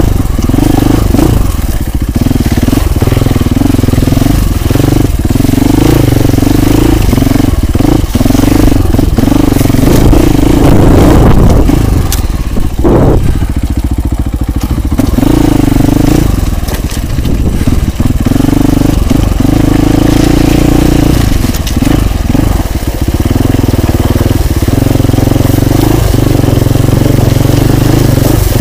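Husqvarna FE 450 enduro motorcycle's single-cylinder four-stroke engine running under way off-road, picked up close by a bike-mounted camera, with frequent knocks and clatter from the bike over rough ground. Near the middle the engine revs up briefly, then eases off for a few seconds.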